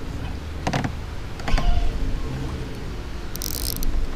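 Fishing reel at work while a heavy hooked fish is fought: a couple of clicks, then a short high buzz about three seconds in.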